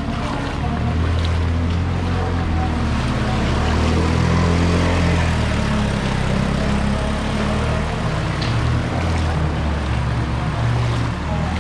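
Floodwater sloshing and splashing as a motor scooter rides through it, its small engine running steadily under the rush of water.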